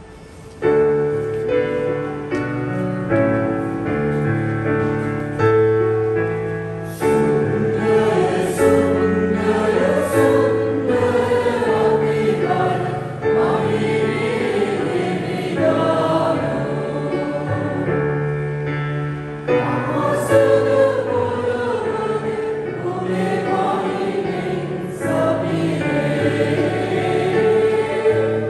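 Church choir singing a hymn in Sinhala, with digital piano accompaniment; the music comes in about half a second in.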